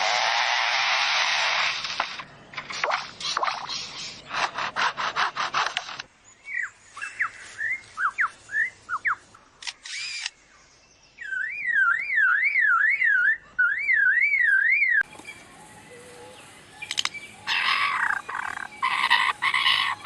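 A lyrebird running through its mimicry repertoire: a hissing rush and a run of rapid clicks, a few short falling whistled bird calls, then a warbling up-and-down tone like an alarm or siren, and more hiss and clicking near the end.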